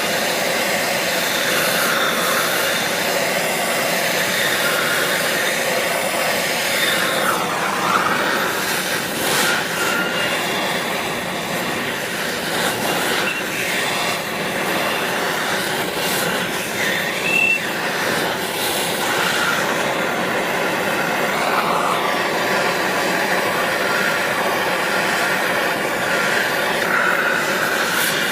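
Handheld gas torch flame hissing steadily while it heats a seized belt pulley on a small engine's crankshaft, with faint wavering whistle-like tones and a few light clicks.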